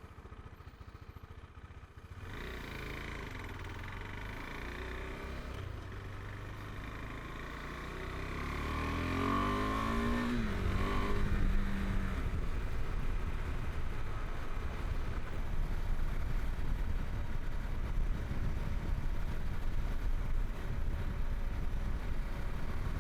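Small KTM adventure motorcycle engine running quietly, then accelerating through the gears with its pitch rising several times between about 8 and 12 seconds in. It then settles into steady, louder riding noise.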